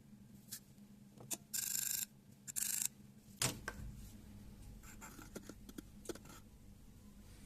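Hand handling noises: two short scraping strokes, then a sharp click about three and a half seconds in followed by a few lighter taps.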